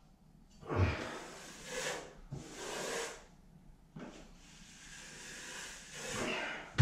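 Steel taping knife spreading drywall joint compound (mud) over a ceiling patch: a series of short scraping strokes, each under a second, with pauses between them.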